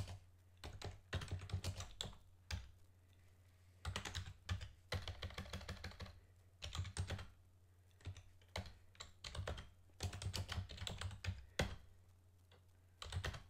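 Computer keyboard being typed on in short bursts of keystrokes with pauses between, over a low steady hum.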